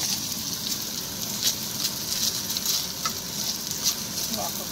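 Whole shrimp frying in butter in a frying pan: a steady sizzle with a few sharper pops and crackles.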